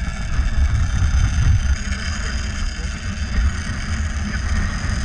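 Strong wind buffeting the microphone, a heavy steady rumble, with a thin high-pitched whine running over it from a Shimano Tiagra 130 big-game reel giving line against its drag to a hooked shark.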